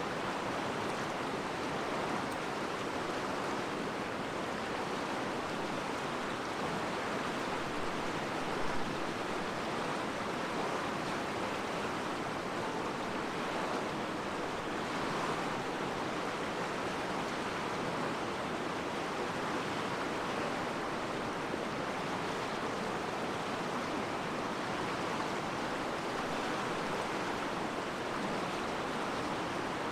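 River water rushing, a steady even wash of sound.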